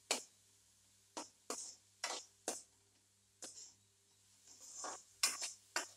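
Metal spoon scraping and clinking against an aluminium kadai while stirring chopped onions and tomatoes as they sauté: short, sharp strokes in irregular runs, about nine in all, busiest near the end.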